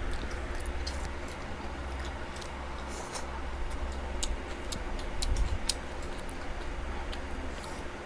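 People eating at close range: irregular small clicks of chewing and mouth sounds over a steady low hum.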